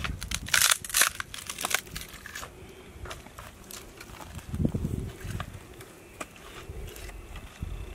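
Dry twigs and leaf litter crunching and snapping, with a cluster of loud sharp cracks in the first two seconds, then scattered smaller cracks and a dull low thud near the middle.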